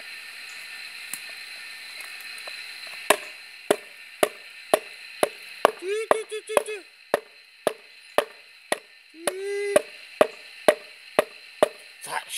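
Sharp, regular taps or clicks, about two a second, beginning about three seconds in. Twice, near the middle, they are joined by a short run of pitched calls.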